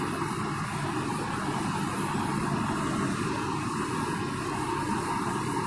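Whiteboard being wiped with a duster: a steady rubbing swish across the board surface.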